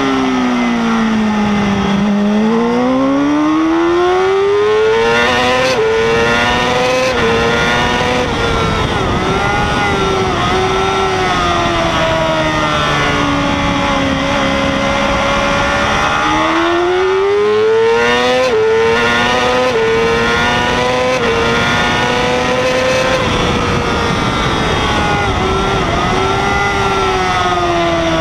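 Yamaha R6 600cc inline-four sport bike engine at race pace. The revs drop near the start as the bike slows for a corner, then climb with gear changes over the next few seconds. Around the middle they dip again for a slower bend, then rise through several more upshifts.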